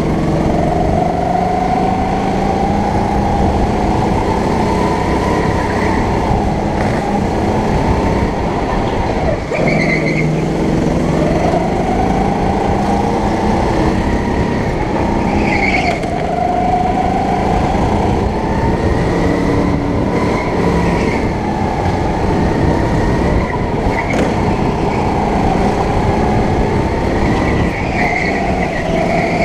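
Go-kart engine running hard through laps, its note climbing as the kart accelerates and dropping away as it slows for each corner, again and again every few seconds.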